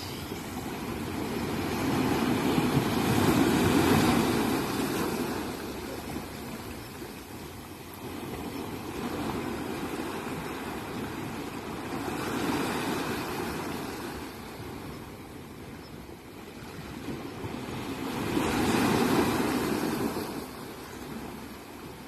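Small waves breaking and washing up a sandy beach among boulders. The surf swells and eases in three slow surges, loudest about three to four seconds in and again near the end.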